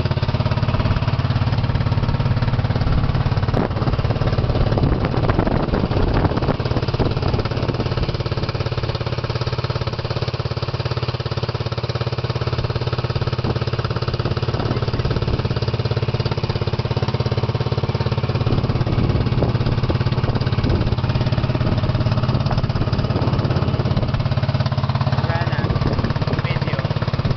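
A small motorboat's engine running steadily underway, holding one constant low note.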